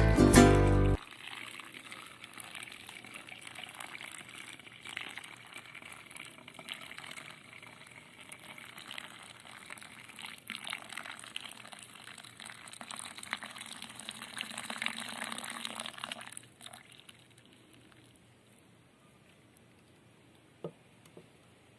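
A thin stream of water poured from a saucepan into a cloth coffee strainer packed with grounds, trickling and splashing into the jug below; the pour stops about three-quarters of the way through. Plucked-string music ends about a second in, and a single short click comes near the end.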